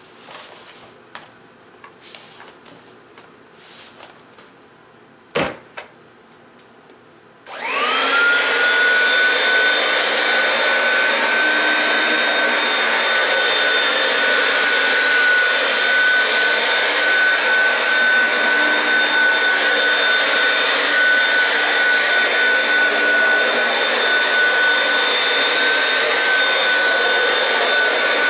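A few small clicks and knocks, with a sharper knock about five seconds in. Then a vacuum cleaner switches on about seven seconds in: its motor spins up quickly to a steady high whine and keeps running at full speed.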